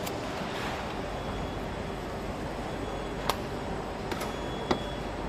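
Steady factory-hall background noise. A few sharp clicks cut through it, the two loudest about three and four and a half seconds in.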